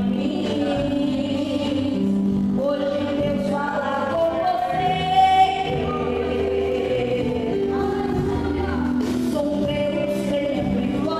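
Gospel vocal group singing a Christian worship song, several voices in harmony on long held notes, with musical backing.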